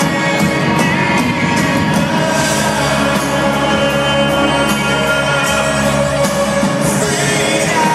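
Live band music played through a concert PA, heard from among the audience in a large arena, with a sung vocal line.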